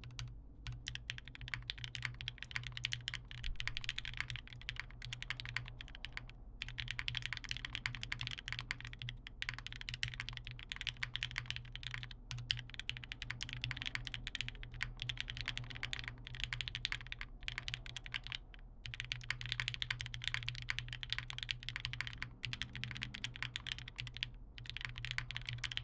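Continuous fast typing on a TGR Tomo mechanical keyboard with broken-in Cherry MX Red linear switches, a carbon-fibre plate, GMK doubleshot ABS keycaps and no case foam, with a few brief pauses. Picked up on a phone microphone, with a steady low hum underneath.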